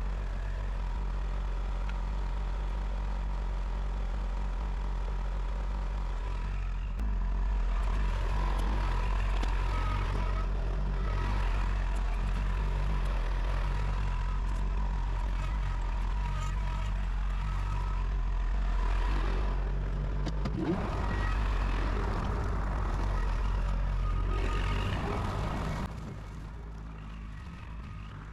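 Tractor engine running steadily under load, getting louder about seven seconds in and dropping back near the end.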